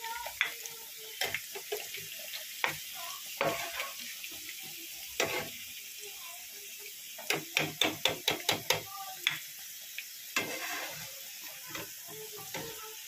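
Onions deep-frying and sizzling in hot oil in a frying pan while a metal slotted spoon scrapes and taps against the pan, lifting the browned onions out and pressing the oil from them. There is a quick run of taps about seven to nine seconds in.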